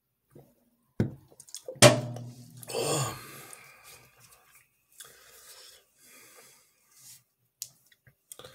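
A person clearing their throat and then exhaling, just after a single sharp click about a second in.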